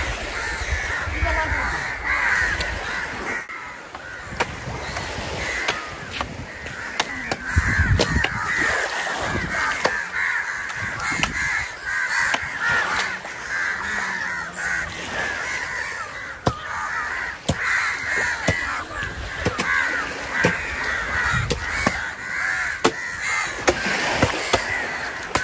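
A large flock of crows cawing continuously over one another, with sharp knocks scattered irregularly through it from a big knife chopping into stingray carcasses.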